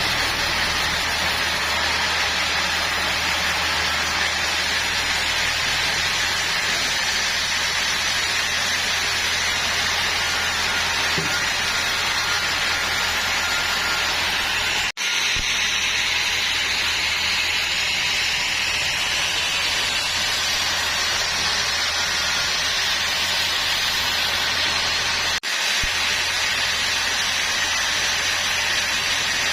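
Sawmill machinery running steadily: a loud, even hissing noise over a low machine hum, broken by two momentary dropouts.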